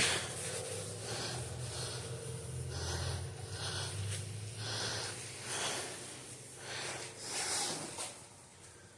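A WD-40-dampened cloth towel rubbing and wiping the inside of an engine cylinder bore in repeated strokes, a rubbing swish about once a second, cleaning the bore before the pistons go in.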